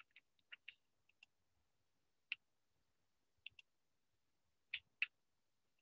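Faint computer mouse clicks, about ten sparse and irregular clicks, some in quick pairs, against near silence.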